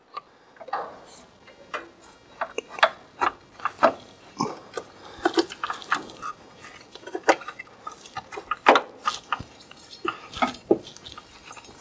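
Irregular metal clinks and knocks of a bar and hands working on a Polaris RZR's secondary clutch to pry the CVT drive belt off.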